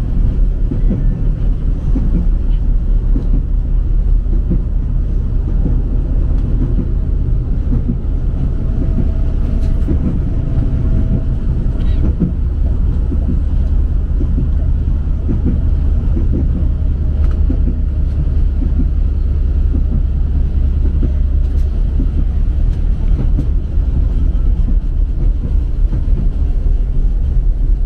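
Tram running on its rails, heard from inside the car at the articulated joint: a loud, steady low rumble of wheels and running gear, with a few faint clicks and a brief faint whine about nine to eleven seconds in.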